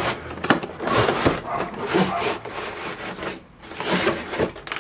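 Cardboard packaging rubbing and scraping as a Corsair Vengeance K60 keyboard is slid out of its box: a run of irregular scuffs and rustles with a few short knocks.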